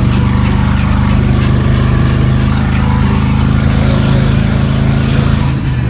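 A vehicle's engine and road noise heard from inside the cabin while driving, a steady low drone.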